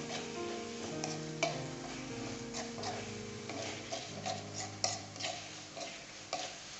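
A spatula scraping and clicking against an aluminium wok as blended spice paste is stirred while it fries, with sharp taps a few times a second, over steady background music.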